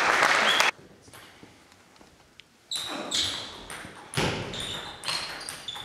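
Table tennis rally: the ball clicking sharply off bats and table about every half second, starting a little under three seconds in, some hits with a brief high ping. It is preceded by a burst of clapping and voices that cuts off suddenly under a second in.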